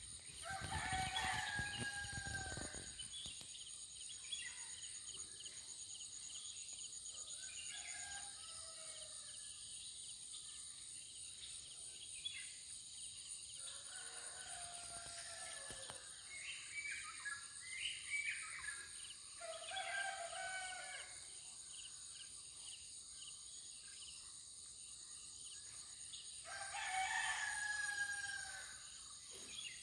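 Roosters crowing about five times, each crow a long pitched call lasting one to three seconds, over a steady high-pitched drone of insects.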